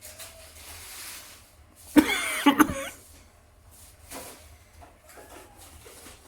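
A cat lets out one loud, wavering call about two seconds in, lasting under a second, with fainter soft sounds around it.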